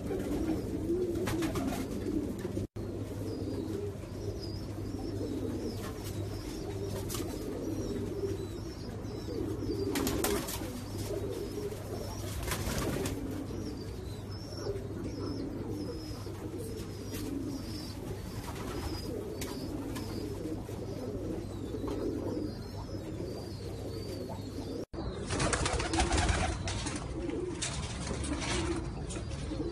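Caged domestic pigeons cooing, a continuous overlapping low warbling. The sound drops out for an instant twice, about three seconds in and near the end.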